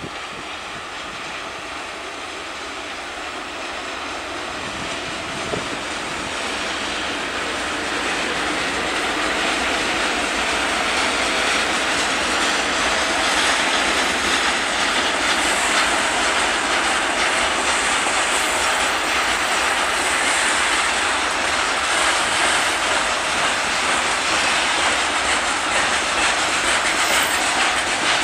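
Freight train hauled by an electric locomotive passing close by: a steady rushing rumble of wheels and running gear that grows louder over the first ten seconds or so, then holds as the wagons roll past.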